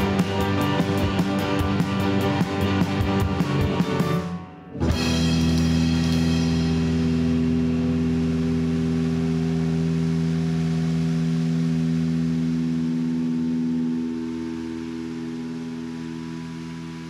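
Live rock band playing with drum kit and electric guitars, stopping together about four seconds in. After a brief gap, a single held chord rings on steadily and drops slightly in level near the end.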